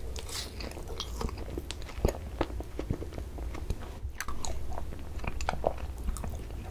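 Close-miked mouth sounds of someone eating ice cream off a spoon: scattered wet smacks and clicks of lips and tongue.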